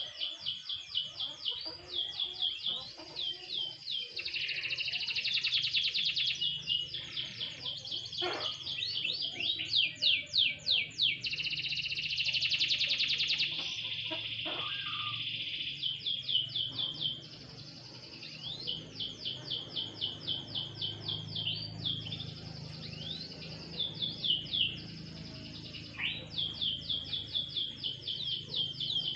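Domestic canary singing: long, fast trills of rapidly repeated high notes, phrase after phrase with short pauses between.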